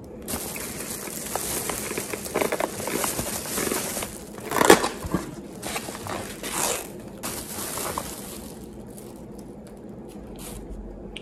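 Thin plastic carrier bag rustling and crinkling as food containers are pulled out of it, loudest a little before halfway through. After about eight seconds it dies down to a few light clicks and taps of foam and plastic takeout containers being handled.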